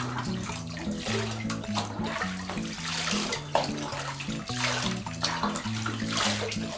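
Bathwater splashing and pouring from a scoop over a wet Shiba Inu in a bathtub, in several gushes, over background music with a stepping low melody.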